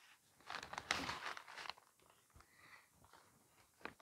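Newspaper wrapping over a banana-leaf packet rustling as it is pulled open by hand. The first two seconds are the loudest, followed by lighter handling noises.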